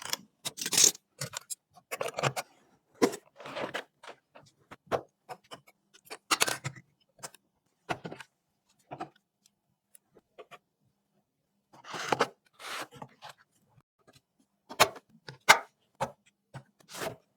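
Computer parts and packaging being handled during a PC build: scattered clicks, taps and short scrapes with quiet gaps between them.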